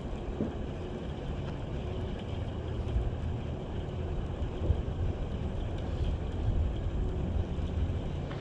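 Wind buffeting the microphone: a steady low rumble that rises and falls.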